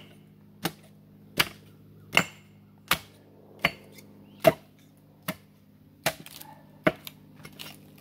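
Hatchet chopping nine times in a steady rhythm, about one blow every three-quarters of a second, cutting through the stringy fibres that still hold a split sycamore log together. Lighter crackling near the end.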